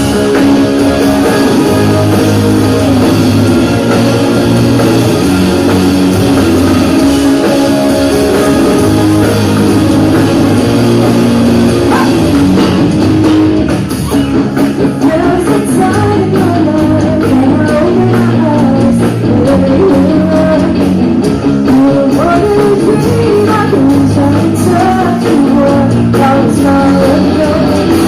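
Live band playing a pop-rock ballad: electric guitar, bass and drum kit, with singing over it.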